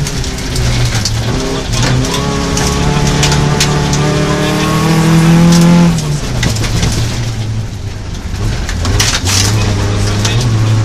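Rally car engine heard from inside the cabin at full speed on a gravel stage, its revs climbing for a few seconds, dropping sharply about six seconds in as the driver lifts or shifts, then climbing again. Sharp knocks of gravel striking the car's underside break in throughout.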